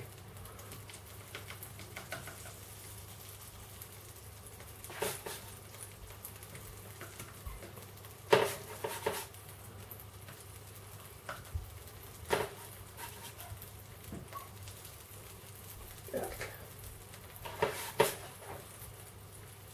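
Faint sizzling of margarine in a frying pan as raw Welsh cakes are laid in one by one, with several short taps and knocks spread through.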